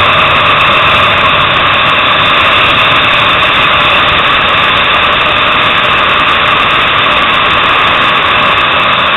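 Onboard sound of a sport motorcycle ridden at speed on a racetrack: a steady, loud engine drone mixed with rushing noise.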